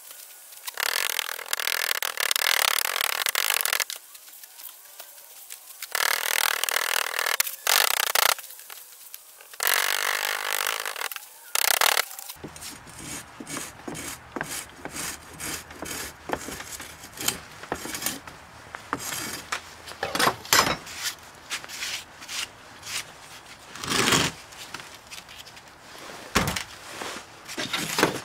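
Foundry moulding sand being worked into a wooden flask, heard in the first half as long rushes of gritty noise lasting a few seconds each. In the second half a steel strike-off bar scrapes the excess sand off the top of the flask, with many short scrapes and clicks and a few sharp knocks as the mould is handled.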